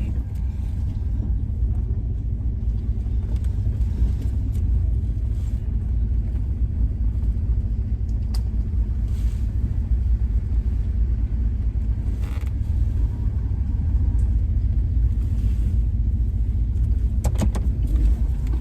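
Two-door Chevrolet Tahoe running at low speed while backing up, a steady low rumble, with a few light clicks near the end.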